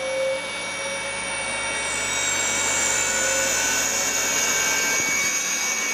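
Small three-phase induction motor on a Powtran variable-frequency drive running smooth and quiet, well above its 50 Hz rating. Its whine climbs slowly in pitch as the drive is stepped up from about 115 Hz to 138 Hz.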